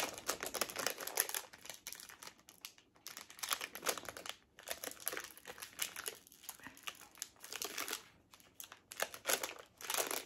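Blind-box packaging wrapper crinkling and crackling irregularly as it is handled and opened, louder at the start and again near the end.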